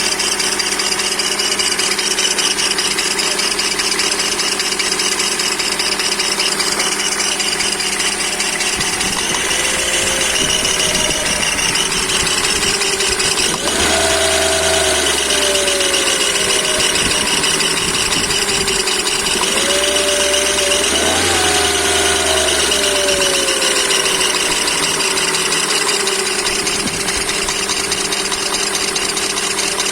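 Toyota 4ZZ-FE 1.4-litre four-cylinder engine running with a heavy knock, loudest on the drive-belt side; it is revved up and let fall back twice. The owner suspects worn crankshaft bearing shells.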